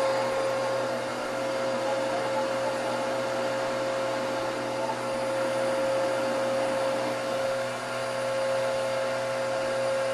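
Vacuum cleaner motor running steadily, an unbroken hum with a constant whine.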